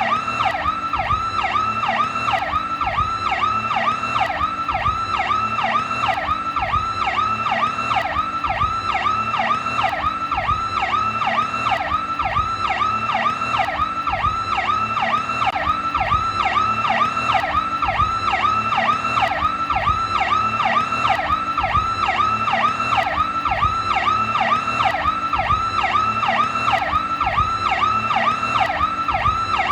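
Police car electronic siren on its Powercall tone, as used by New York police: a fast rising-and-falling wail that repeats evenly, several sweeps a second, without a break.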